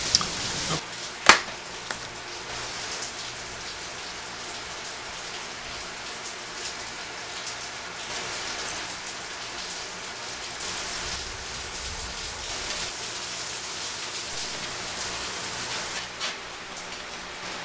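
Steady hiss of rain, with one sharp click about a second in.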